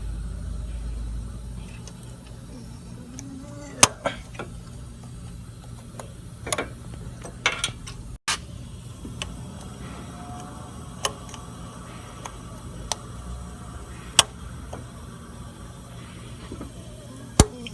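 Scattered sharp metallic clicks and taps, the loudest about four seconds in, about fourteen seconds in and near the end, from snap-ring pliers and hand tools working the retaining snap ring off an AC compressor clutch, over a steady low hum.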